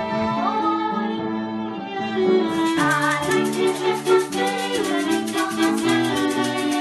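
Home ensemble music: violins and an upright piano playing a tune together. From about two and a half seconds in, a hand shaker joins with a steady, fast shaking rhythm.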